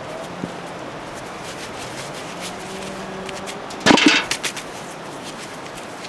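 Potatoes tossed into a galvanized metal bucket: a quick cluster of knocks a little under four seconds in, over a quiet outdoor background.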